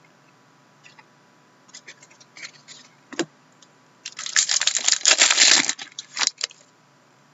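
A trading-card pack's foil wrapper crinkling loudly for about two seconds as it is torn open and the cards are pulled out, starting about four seconds in. Before it come light clicks and rustles of cards being handled, and one sharp click.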